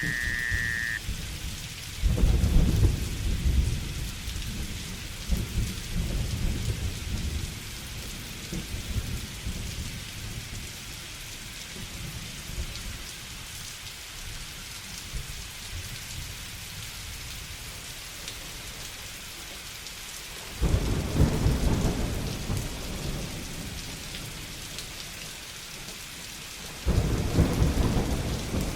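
Steady rain falling through a thunderstorm. Three rolls of thunder each start suddenly and rumble away over several seconds: about two seconds in, about twenty seconds in, and near the end. A short whistled note sounds at the very start.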